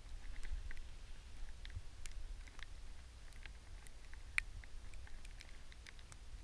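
Light, irregular ticking and patter, several small ticks a second with one sharper tick a little past four seconds in, over a low rumble on the microphone.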